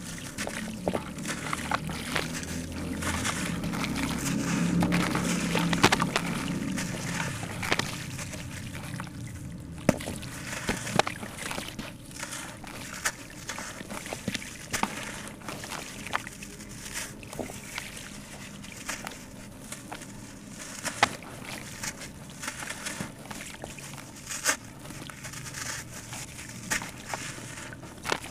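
Soft sand-cement chunks crumbling between gloved hands, grit and pieces trickling and dropping into water: a steady gritty crackle dotted with many small sharp cracks, louder over the first six seconds or so.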